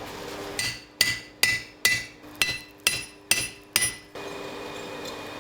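Hammer striking steel about eight times over some three seconds, roughly two blows a second, each blow leaving a bright metallic ring.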